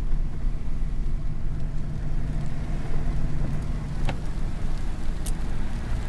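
Steady engine and road noise of a moving vehicle heard from inside the cab, a low hum with a couple of faint clicks.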